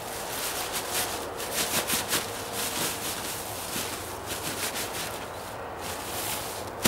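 Black plastic bin bag crinkling and rustling in irregular bursts as it is pulled over a bulky rolled bundle, with one sharp click near the end.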